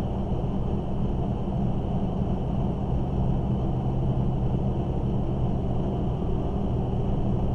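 Steady room tone: a constant low hum with a soft hiss, unchanging throughout.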